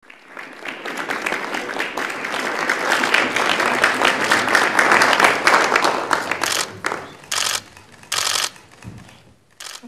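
Audience applauding, building over the first few seconds and dying away after about seven. A few short bursts of rapid clicking follow near the end.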